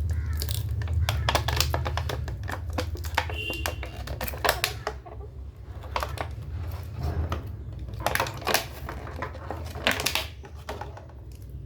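Irregular clicks and crackles of a plastic-packed USB hub being handled and unpacked, with a steady low hum underneath.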